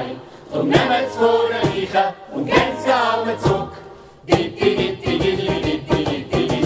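Stage ensemble singing a song together in chorus, in phrases broken by short pauses.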